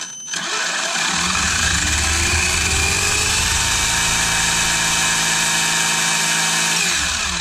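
RC car's stock brushless motor run up to full throttle on the bench, spinning the drivetrain and tyres in the air. It gives a whine that rises in pitch over the first second, holds steady, and falls away near the end as the throttle is let off. The motor is at its factory 20 degrees of timing.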